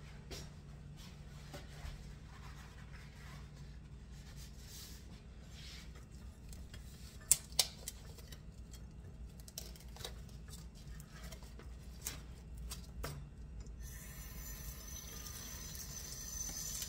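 Quiet kitchen handling: scattered light rustles and taps as paper towels are spread out on a countertop, with two sharp clicks about seven seconds in. A steady hiss starts about three seconds before the end.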